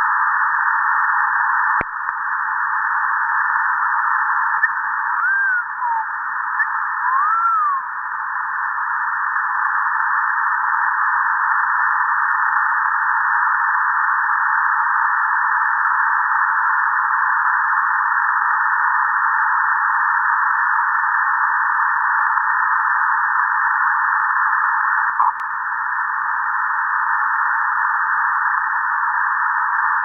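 Shortwave radio static on 6660 kHz heard through a WebSDR's narrow lower-sideband filter: a steady band of hiss. About five and seven seconds in come two short whistles that rise and fall in pitch, and a sharp click sounds near two seconds, with a fainter one near twenty-five seconds.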